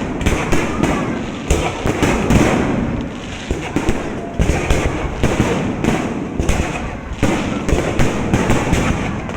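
Fireworks display: a dense, irregular run of bangs and crackles in quick succession.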